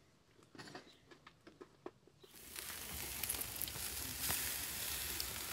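Marinated pork and chicken wings sizzling on a charcoal grill, a steady hiss with small crackles that starts about two seconds in. Before it, a few light knocks.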